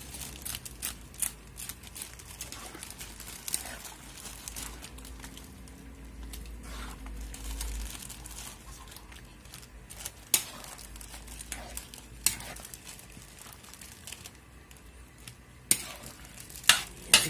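Spatula scraping and knocking against a large metal wok while noodles are tossed, with a sizzle under it. The sharpest clanks come about ten seconds in and near the end.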